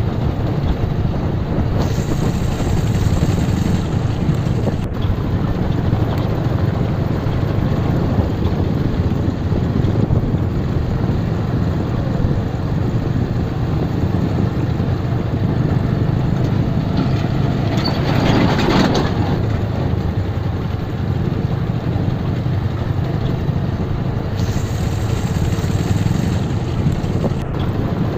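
Motorcycle running steadily at low speed over a rough dirt road, its engine mixed with a low wind rumble on the microphone. A brief louder rush of noise comes about two-thirds of the way through.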